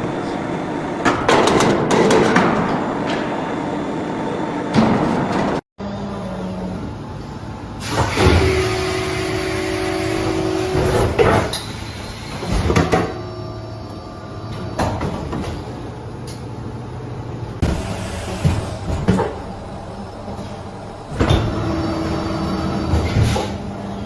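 Factory machinery running, with steady hums and whines and repeated knocks and clanks. The sound breaks off for a moment about six seconds in, then a different machine sound follows.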